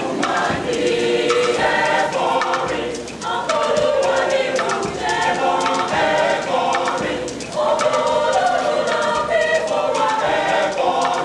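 Mixed choir of men's and women's voices singing a Catholic liturgical song in a Nigerian language, in parts, in sustained phrases with two short breaths between them.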